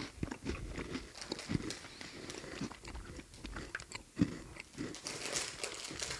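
People biting into and chewing a crunchy strawberry white-chocolate biscuit snack, a run of small crunches with one sharp, loud crunch about four seconds in.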